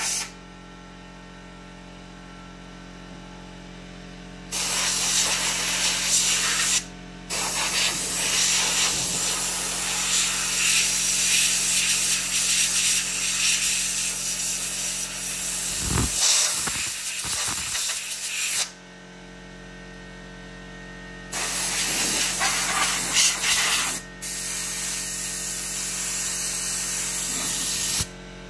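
Compressed air hissing in several bursts, cleaning out a chainsaw. Each burst starts and stops abruptly, and the longest lasts about eleven seconds. A few dull low thumps come in the middle.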